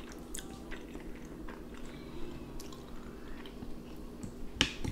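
Close-miked chewing and wet mouth sounds of people eating smoked mackerel and boiled potatoes, with scattered small clicks. One sharper click comes near the end.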